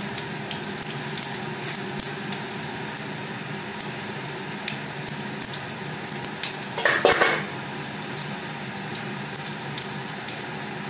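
Cumin seeds frying in hot mustard oil in a metal wok: a steady sizzle with many small crackling pops. About seven seconds in there is a brief, louder clatter.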